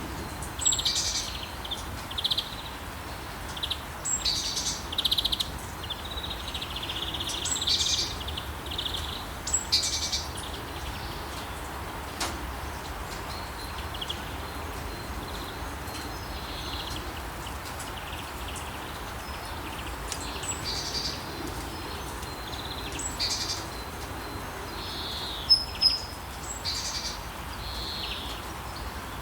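Steady rain hiss with several songbirds chirping and singing on and off over it.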